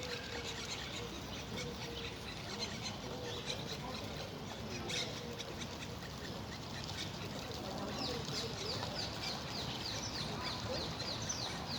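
Birds chirping and singing over the steady rush of flowing water. Near the end one bird repeats a quick run of short falling notes, about four a second.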